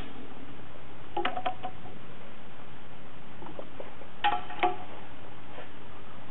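Steel parts clinking against each other: a few short metallic knocks that ring briefly, a pair about a second in and a louder pair about four seconds in.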